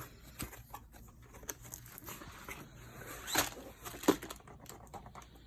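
Box and packaging of a diamond-painting kit being opened and emptied by hand: scattered taps and rustles, with a louder rustle and knock about three to four seconds in.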